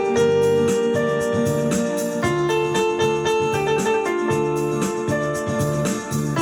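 Background music led by keyboard or electric piano: chords held over a steady beat.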